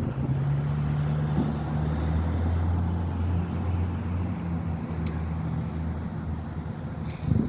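Road traffic passing close by: a vehicle's engine drone over tyre and road noise, loudest about two to three seconds in and then easing off, with a short thump near the end.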